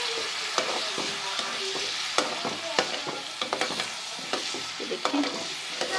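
Diced potatoes and masala sizzling in hot oil in a pan, with a spoon scraping and knocking against the pan at irregular moments as the mixture is stirred.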